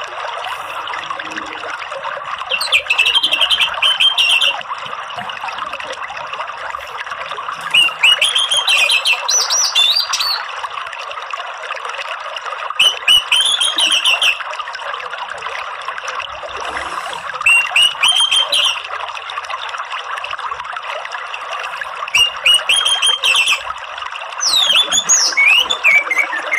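Orange-headed thrush singing in short phrases of quick rising notes, about six phrases several seconds apart, over a steady hiss of running water.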